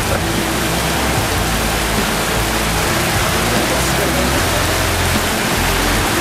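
Heavy downpour: a steady, loud hiss of rain, with low bass notes of music underneath.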